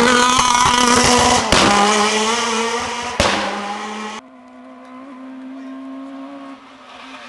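Renault rally car's engine running hard at high revs as it passes close, with two sharp cracks about one and a half and three seconds in. The sound cuts off abruptly just after four seconds, leaving a fainter, steady engine note from a car further off.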